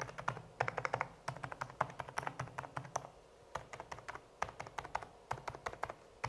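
Typing on a Dareu A104PRO FLEX full-size mechanical keyboard with silent Oak switches and foam dampening: a quick, fairly quiet run of soft keystroke clicks, with a brief lull about three and a half seconds in.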